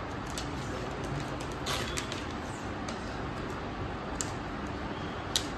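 Paper wrapping around a new smartphone being peeled open by hand: faint rustling with a few light ticks, the sharpest near the end, over steady room noise.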